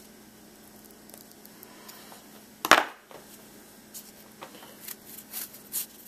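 A pocket knife's blade is worked into a knot in nylon rope: quiet rubbing and handling, then one sharp scrape about two and a half seconds in, followed by light scattered clicks and taps. A faint steady hum runs underneath.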